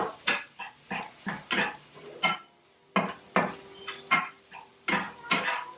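A utensil clinking and scraping against a frying pan while stirring sloppy joe filling. The sharp clinks come irregularly, about two or three a second, with a short pause about two and a half seconds in.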